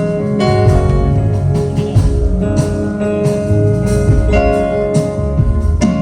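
Instrumental band music: guitar playing held notes over bass and drums, with regular drum and cymbal strikes.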